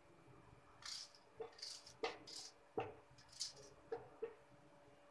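Onion slices dropped by hand into a stainless-steel grinder jar: a series of light knocks on the metal with brief rustling of the onion pieces, faint.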